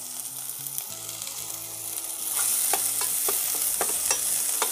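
Chopped ginger, garlic, green chilli and onion sizzling in hot oil over a high flame. The sizzle grows louder a little over two seconds in, with a spatula clicking and scraping against the pan as it is stirred.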